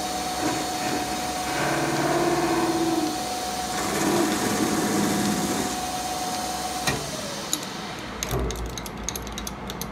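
Metal lathe running, turning down round bar stock: spindle drive and cut make a steady whine that stops about seven seconds in. A few light clicks and knocks follow near the end.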